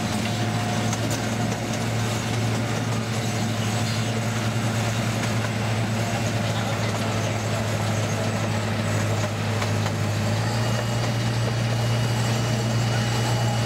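Engine of a Chance Rides miniature train locomotive running with a steady low hum as the train rolls along the track, heard from the open car coupled just behind it. A faint thin high tone joins in during the last few seconds.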